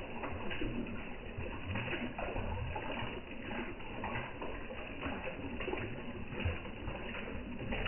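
Koi feeding at the surface of a pond: irregular splashing and slurping as the fish take floating food pellets.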